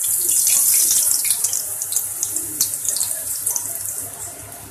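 Bhatura dough deep-frying in hot oil: a loud high sizzle with many sharp crackling pops, loudest near the start and easing off over the following seconds.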